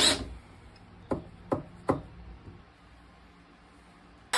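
A drill gives a short burst of running, then three sharp knocks follow about half a second apart.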